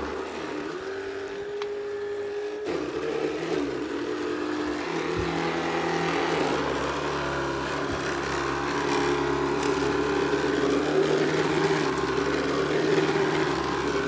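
Shark cordless stick vacuum running while it is pushed over carpet: a steady motor hum whose pitch shifts now and then as the head moves.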